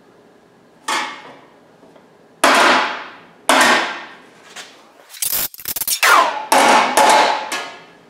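Hammer blows on a piece of 18-gauge sheet steel laid over a car wheel rim, hammer-forming a curve into it; each strong blow rings out and dies away. About five seconds in comes a quick flurry of lighter taps, then three more hard blows.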